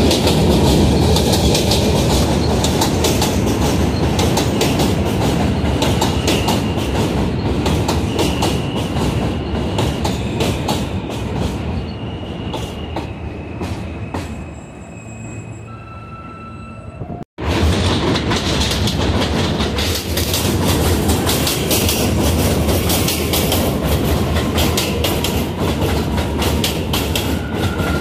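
New York City subway train of R160 cars running into an elevated station and slowing. Its wheels clatter over the rail joints and fade as it brakes, leaving short steady motor whines at a few pitches. After a sudden break about two-thirds through, an R179 train clatters along the platform, with a falling whine near the end.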